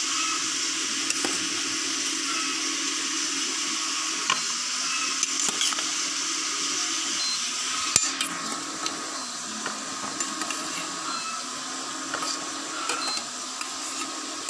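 Metal slotted spoon clinking and scraping on a ceramic plate as boiled taro stolons are scooped out of the pot and tipped onto it, with a sharp knock about eight seconds in. Under it runs a steady sizzling hiss of fish frying in oil.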